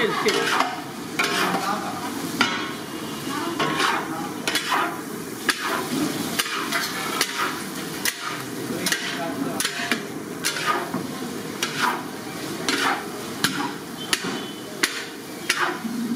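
Long-handled metal spatula and ladle scraping and clanking against a large metal kadai as a batch of fried rice is tossed and stirred, in a steady rhythm of strokes, about one and a half a second.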